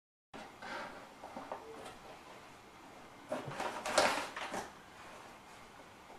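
Hands working and spreading flour on a wooden pastry board: irregular brushing and scraping strokes, loudest in a cluster a little past the middle. The sound cuts out briefly at the very start.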